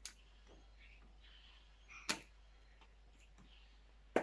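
Plastic magnetic building blocks clicking together, two sharp clicks about two seconds apart, the second louder, over quiet room tone.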